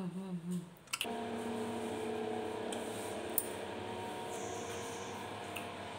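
Steady mechanical hum with several held tones, starting abruptly about a second in, with a single faint click midway. Before it, a wavering hummed tone fades out.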